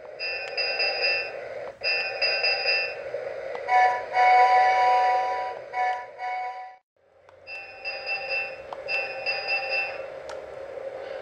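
Electronic bell and whistle sound effects from the speaker of a Lionel 'A Christmas Story' battery-powered G-gauge toy steam locomotive. They come as steady tones in short blocks, then a longer chord of several tones from about four to seven seconds in, and after a brief break the shorter blocks return.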